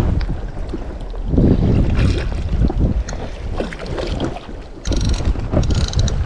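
Wind buffeting the microphone and water lapping at an inflatable boat. About five seconds in, a Balzer Master Peace 8600 spinning reel starts a rapid ratcheting click.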